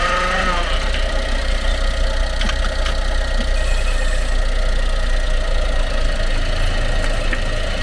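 Honda Acty HA9 kei truck's three-cylinder engine and drivetrain running steadily, with a rising whine that dies away in the first second and a few faint clicks a few seconds in. The truck has a worn propeller-shaft universal-joint bearing that makes an abnormal noise.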